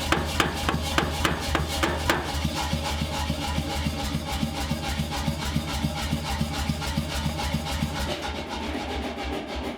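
Hammer blows on steel at the anvil, about three a second, then from about two seconds in a faster run of lighter strokes that fades near the end, over a steady low hum.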